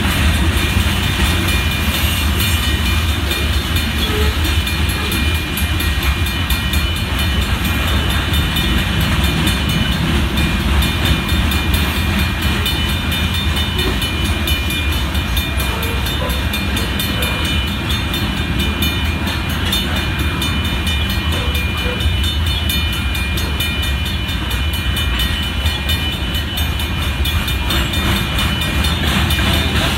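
Freight train of covered hopper cars rolling steadily past at a grade crossing: a continuous rumble and rattle of steel wheels on the rails, unchanging throughout.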